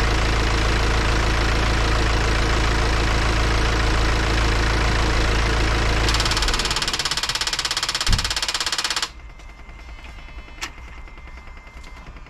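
BMW X1 18d F48's four-cylinder diesel engine idling steadily, then shut off about six seconds in: as it runs down, a fast metallic rattle sounds for about three seconds, with one thump, and stops abruptly. This rattle on shutdown is the strange noise whose cause the owner does not know.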